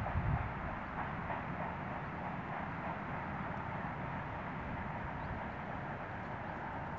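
Wind on the camera microphone: a steady rushing hiss over an uneven low rumble, with a brief louder buffet at the very start.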